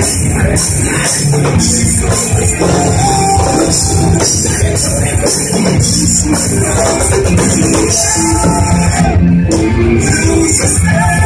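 Metalcore band playing live and loud: distorted electric guitars, bass and a drum kit with constant cymbal crashes. The cymbals drop out for a moment about nine seconds in before the full band comes back.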